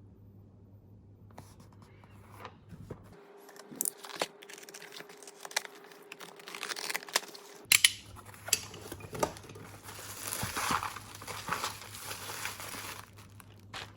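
Packaging being opened by hand: scattered taps and clicks, then a stretch of crinkling and tearing in the second half that stops shortly before the end.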